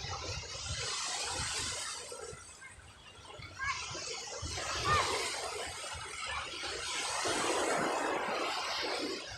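Sea waves washing onto the shore, the surf swelling and ebbing twice, with low rumbling gusts underneath.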